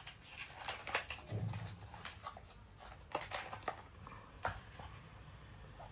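A compact setting-powder box being unwrapped and opened by hand: faint rustling with a string of small clicks and taps, and a soft low thump about a second and a half in.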